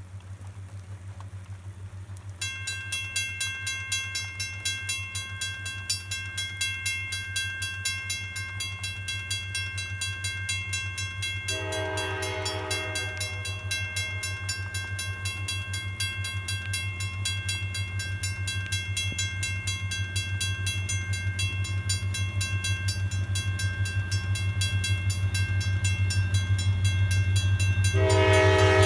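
A level-crossing warning bell starts ringing steadily about two seconds in as the crossing activates. An approaching SD40 diesel freight train sounds its air horn in one blast of about two seconds partway through, and a second blast begins near the end. Under both, a low rumble grows steadily louder as the train nears.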